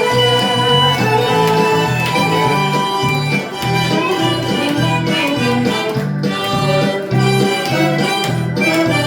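Harmonica playing a sustained melody over instrumental accompaniment with a steady, rhythmic bass and chord pattern.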